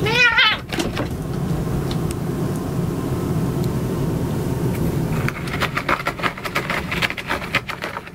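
A cat gives one short wavering cry at the start over a steady low rumble. From about five seconds in, claws rake a cardboard cat scratcher in quick, irregular scratching strokes until the sound fades.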